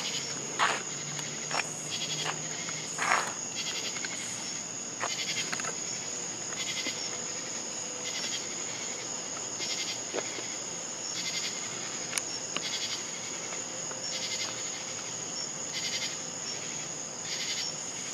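Night insects chirping: short high chirps about once a second over a constant high-pitched drone, with a few brief soft sounds in the first three seconds.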